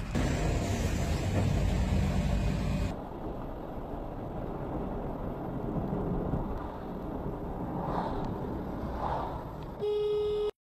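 A loud low rumble cuts off suddenly about three seconds in. It gives way to steady road and engine noise heard from inside a car. Near the end comes a short, steady horn-like tone that stops abruptly.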